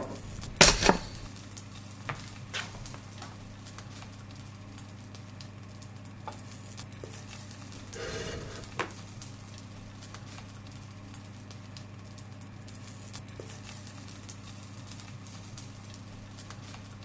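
A steady low electrical hum, broken about a second in by a sharp double burst, and just past the middle by a softer, longer burst. Scattered light clicks and taps fall in between.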